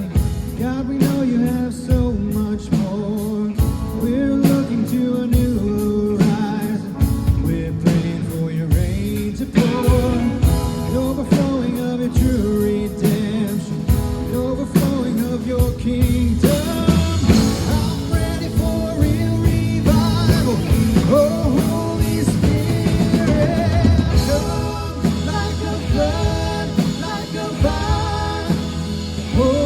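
Live band playing a worship song, with a drum kit, guitar and sung melody.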